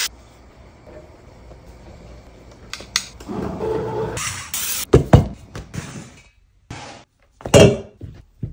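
Kitchen sounds in quick cuts: a rushing noise about three seconds in, then two sharp knocks around five seconds. Near the end comes a loud chop as a metal bench scraper cuts through dough onto a wooden cutting board.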